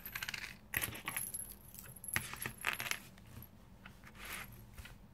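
Resin keychains with metal split key rings and small metal bells clinking and clicking as they are set down and pushed about on a table. The clicks come thick in the first three seconds, then grow sparse and faint.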